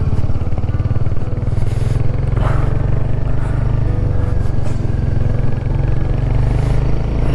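Royal Enfield Himalayan 450's single-cylinder engine running steadily as the motorcycle rides along.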